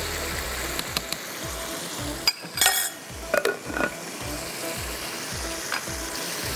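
Steady sizzling and bubbling from a wok of chicken in gravy and a pot of boiling rice water. About two and a half seconds in, a glass pot lid is set down on the rice pot with a ringing clatter and a couple more knocks, after a few light clicks of a spoon.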